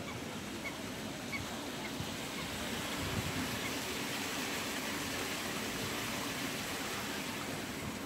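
Waterbirds on a lake calling faintly: a few short calls over a steady rushing hiss of outdoor air.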